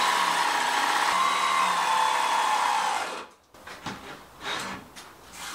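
Cordless jigsaw running and sawing through a plywood panel with a steady whine, which stops abruptly about three seconds in. A few faint knocks follow.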